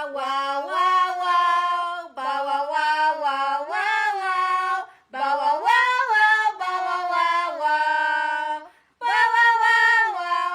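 Wordless, singing-like vocalising: long held notes that step up and down in pitch, in phrases broken by short pauses.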